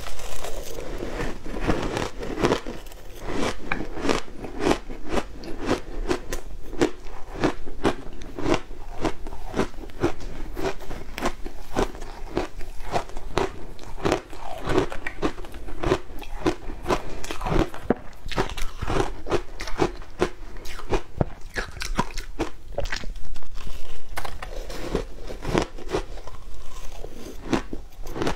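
Close-miked biting and chewing of frozen shaved ice topped with matcha and milk powder: a steady run of sharp, crackly crunches, a few per second.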